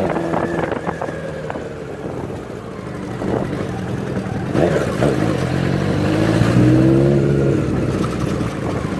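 Honda CBX 750's four-cylinder engine with a 4-into-1 exhaust, running steadily, then revving up and back down about six to seven seconds in.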